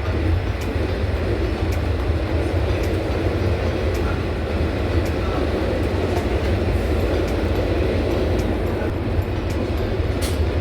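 Steady low rumble and road noise of a vehicle in motion, with a few faint ticks.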